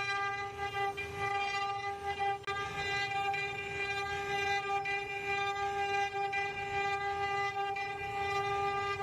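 CNC router spindle running at speed with a steady high whine while its carving bit cuts wood, over a low rumble of cutting. The sound dips briefly about two and a half seconds in.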